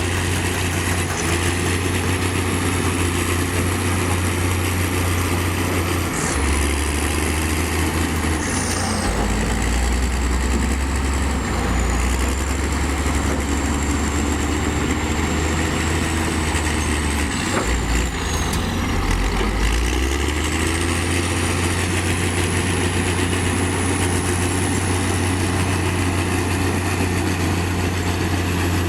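Heavy diesel construction machinery running steadily; the engine's low drone shifts pitch several times as it works, with a high thin whine that dips in the middle and rises again.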